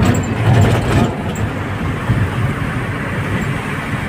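Steady rumble of a moving road vehicle heard from inside, engine and road noise together, with a few light knocks in the first second.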